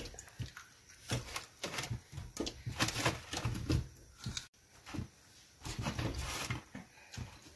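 Whole ripe apricots dropped one at a time into water in an aluminium kadhai: a string of short, irregularly spaced plops and knocks.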